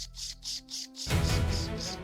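Background soundtrack music: a pulsing, ticking rhythm over held tones. About halfway through, it breaks into a louder, fuller section with a heavy low hit.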